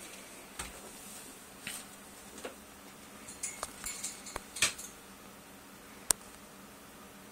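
A blue-crowned conure's beak and feet clicking and tapping on its metal cage top, in scattered light clicks. A cluster comes between about three and a half and five seconds in, and one sharp click about six seconds in.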